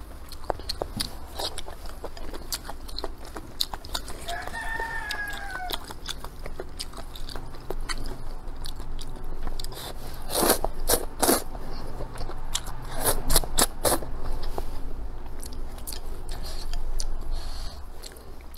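Close-up slurping and chewing of wide noodles in broth: wet mouth clicks throughout, with loud slurps about ten and eleven seconds in and again around thirteen seconds. A rooster crows once in the background about four seconds in, a single arched call that falls at the end.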